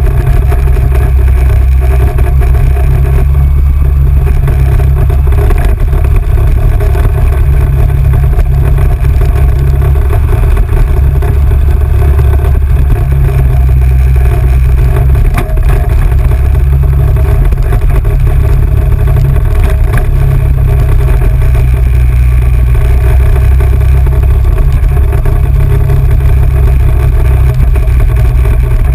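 ATV engine running steadily while riding a dusty dirt trail, loud and close to the microphone with a heavy low rumble.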